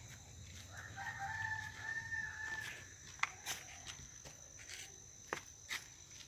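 A rooster crowing once, faint: a single held call of under two seconds about a second in. It sounds over a steady high insect drone, and a few sharp clicks follow.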